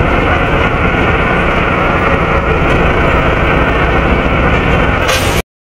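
Volvo B7RLE bus's seven-litre six-cylinder diesel and its engine cooling fan running loudly, heard inside the cabin: a steady deep rumble with a constant whine on top. Near the end the sound cuts off abruptly to silence.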